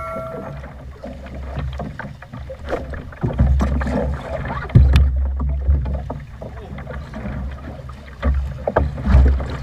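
Wind buffeting the microphone in gusts and choppy waves slapping a small fibreglass boat's hull, with scattered knocks and bumps. A ringing tone fades out right at the start.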